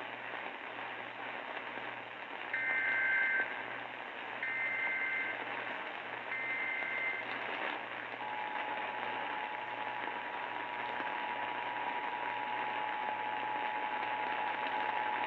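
Emergency Alert System broadcast over a hissing radio: three short bursts of the warbling SAME digital header, then a steady two-tone attention signal. Together they announce the National Weather Service tornado warning that follows.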